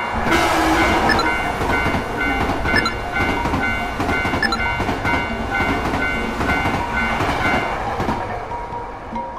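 A train running past over the rails while a Japanese level-crossing alarm rings over and over at about one and a half strokes a second. The alarm stops about eight seconds in as the train sound dies down.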